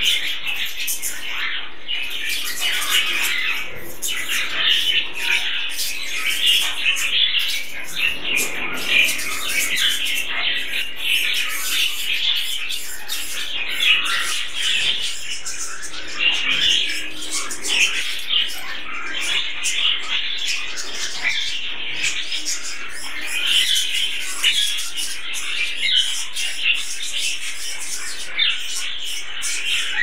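A flock of budgerigars chattering nonstop, many short overlapping warbles, chirps and squawks blending into one steady din.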